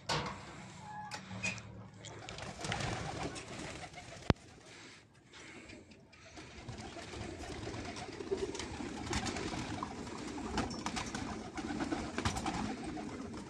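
Domestic pigeons cooing in a loft, the sound thickening about halfway through as the flock comes out, with the short claps of wings taking off. A single sharp click comes about four seconds in.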